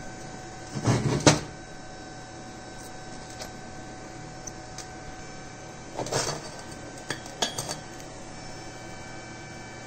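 Machined metal parts of a handmade lathe chuck being handled and knocked together: two loud metal knocks about a second in, a cluster of clinks around six seconds, then a few lighter clicks. A faint steady hum runs underneath.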